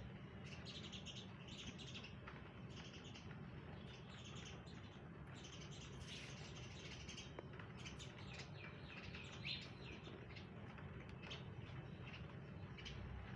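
Small birds chirping, many short quick chirps over a faint, steady low rumble.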